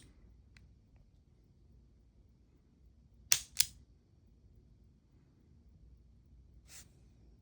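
Smith & Wesson Model 36 revolver being handled: two sharp mechanical clicks in quick succession about three seconds in, with a faint tick near the start and a softer click near the end.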